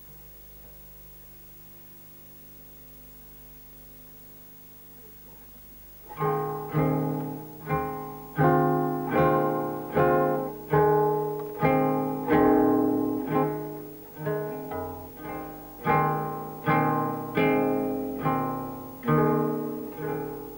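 Acoustic guitar strummed in steady chords, a little under two strokes a second, starting about six seconds in after a faint hum.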